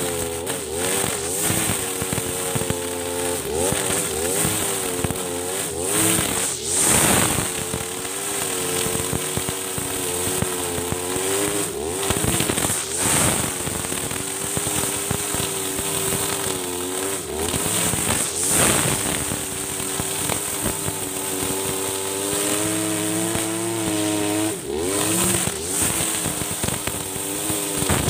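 Husqvarna 542RBS 42cc two-stroke backpack brush cutter running at high revs while its 2.4 mm nylon line cuts thick, tall grass. The engine note rises and falls repeatedly under the load, over a steady high whir from the spinning line.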